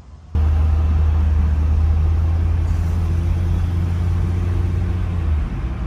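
Road and engine noise inside a moving vehicle's cabin at road speed: a loud, steady low drone with a faint hum above it. It starts abruptly just after the start, and the deepest part of the drone eases off shortly before the end.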